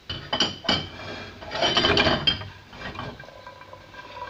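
Wooden spatula scraping dry-roasted makhana (puffed lotus seeds) across a non-stick pan and onto a plate, the light, dry seeds rattling. There are a few short scrapes in the first second, then a louder, longer run of scraping and rattling about two seconds in, which then trails off.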